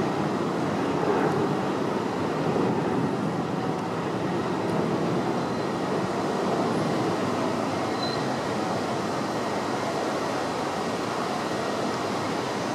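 New York City Subway 7 train of R142A/R188 cars running on an elevated steel structure: a steady noise of wheels on rails at an even level.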